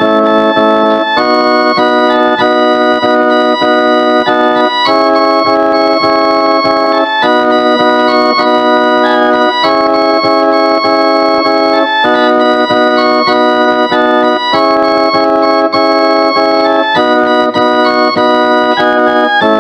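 Instrumental karaoke backing music with no singing: sustained organ-style keyboard chords, each held for about two and a half seconds before switching to the next.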